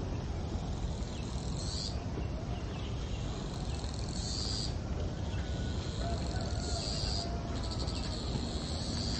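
Insects buzzing outdoors, one call rising in pitch and repeating every two to three seconds, with small high chirps between, over a steady low rumble.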